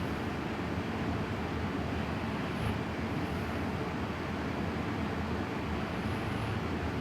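Steady low rumbling noise that holds an even level, with no clear rhythm of breaths.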